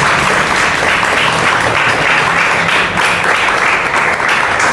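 Audience applauding, a steady, sustained round of clapping.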